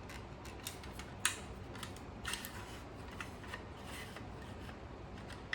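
Small metal parts of a 1958 Daisy Red Ryder Model 94 BB gun clicking and scraping as a part sitting crooked inside the gun is pushed by hand to seat it. A few sharp clicks are spread through, the sharpest about a second in.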